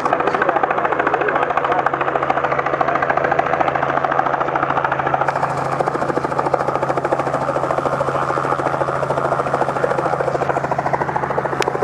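Helicopter running steadily on the ground: its rotor blades give a rapid, even chop over the steady hum of the engine.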